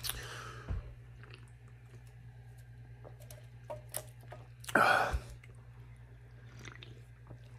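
A man sipping from a beverage can, with faint mouth and handling clicks over a low steady hum. A short breathy rush of noise, the loudest sound, comes about five seconds in.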